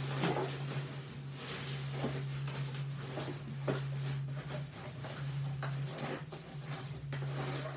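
Rummaging and handling of small objects: scattered light knocks, clicks and rustles over a steady low hum.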